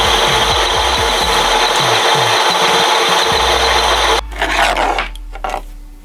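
Loud, steady rasping of a workshop tool working, which cuts off suddenly about four seconds in.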